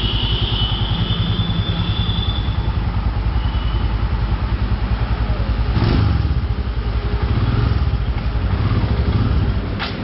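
Royal Enfield Himalayan's single-cylinder engine running at idle with a fast, even thump, getting a little louder from about six seconds in.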